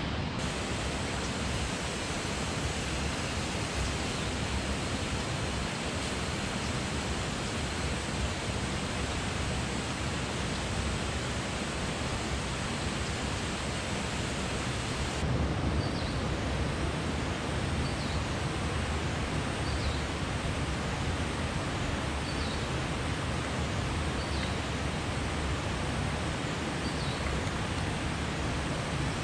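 Steady rush of a small river's water running over rocks, an even hiss. About halfway through, its highest part drops away and faint high chirps start, repeating about every second and a half.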